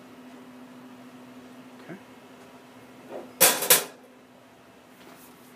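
Steady low hum, then about three and a half seconds in two loud, brief scraping noises in quick succession from a door being pushed open in passing.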